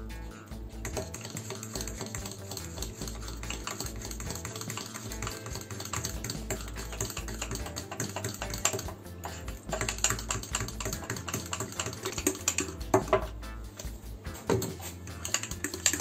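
Metal fork beating thick cake batter in a ceramic mug: a fast, continuous run of clicks and taps as the fork knocks against the inside of the mug.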